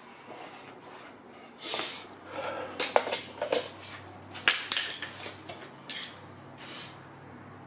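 Irregular clinks, clicks and knocks of hands and metal parts being handled at a pit bike trike, loudest about three and four and a half seconds in; the engine is not running.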